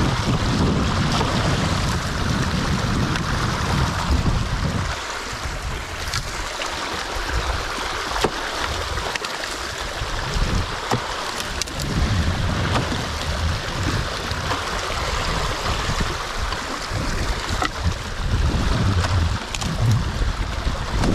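Water rushing and splashing through a breach torn in a beaver dam, a steady hiss of flow. A gusting low rumble of wind on the microphone comes and goes, with a few sharp clicks.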